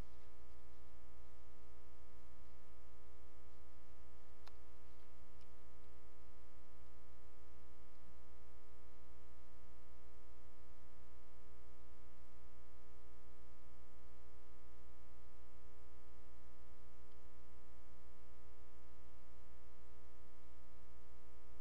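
Steady electrical mains hum with a stack of evenly spaced overtones, picked up on the audio feed, and one faint click about four and a half seconds in.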